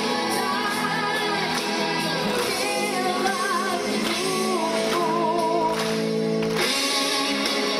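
Singing with musical accompaniment: a voice with vibrato holds one long note near the middle, then breaks off about three-quarters of the way through as the music changes.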